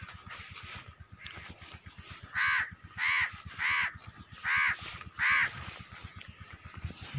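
A crow cawing five times in a row, evenly spaced, each caw short and harsh, starting about two and a half seconds in.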